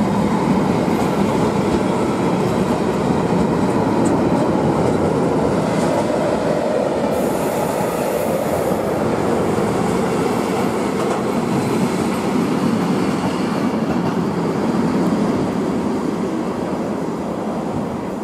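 Freight train of covered goods wagons and tank wagons rolling past, the wheels rumbling and clattering on the rails. The sound eases off near the end as the last wagons clear.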